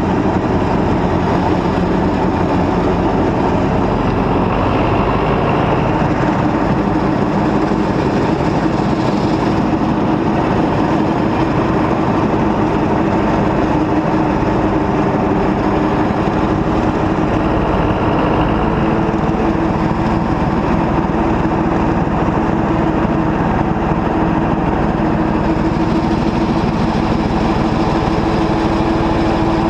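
John Deere 2140 tractor's diesel engine running steadily.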